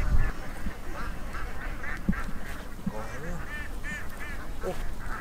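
A chorus of many short, nasal animal calls repeating and overlapping from animals in the flooded field, with a brief low rumble at the very start.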